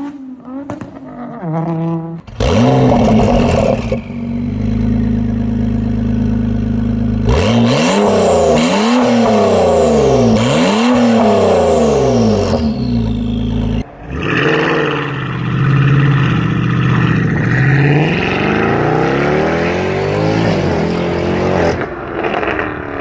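Exhausts of V-engined cars heard in turn, one clip cut to the next. One engine runs steadily and then is revved up and down several times in quick succession. After a sudden cut, another engine runs and revs.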